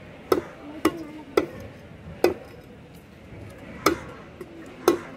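Large cleaver chopping an eel into chunks on a thick wooden chopping block: six sharp chops at an uneven pace.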